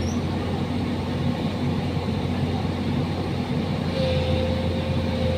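Excavator engine running steadily with a low hum and rumble. A steady whine joins in about four seconds in.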